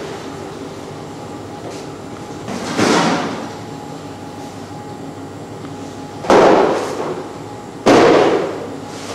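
Selo GMC Tenderit meat tenderiser running with a steady hum. Three loud clanks stand out, about three, six and eight seconds in, each dying away within a second.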